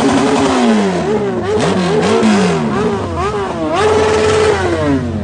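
Motorcycle engine being revved in quick blips, its pitch rising and falling several times, then held high for a moment and dropping back near the end.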